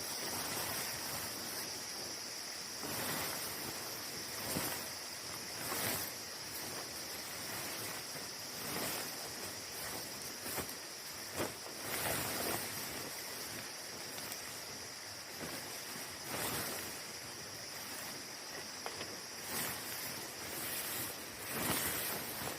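Steady high-pitched chorus of night insects, with irregular sharp crackles and pops from a wood campfire.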